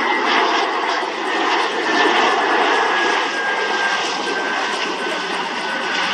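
Bombardier Global business jet's rear-mounted turbofans running as it touches down and rolls out on the runway: a steady jet rush with a faint whine that slowly falls in pitch as the engines spool down.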